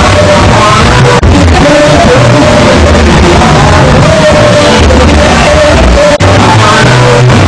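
Loud music with singing over a heavy bass line, dropping out for an instant twice.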